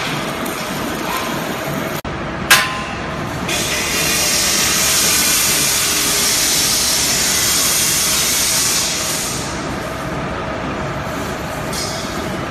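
Steel cattle crush being worked by hand: a single sharp metal clang about two and a half seconds in, over steady workshop noise. A hiss comes in from about three and a half seconds and fades out near nine seconds.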